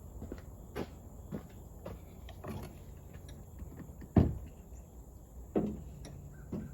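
A series of knocks and clunks from objects being handled and set down, with two loud, sharp knocks about four and five and a half seconds in.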